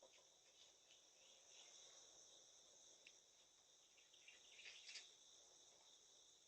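Faint, steady high-pitched insect chorus, like crickets, with a few scattered faint chirps and a short louder flurry of them about five seconds in.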